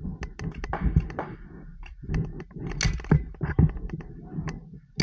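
Paintball markers firing in quick, irregular volleys: a dense run of sharp pops and thuds, with a short lull about a second and a half in.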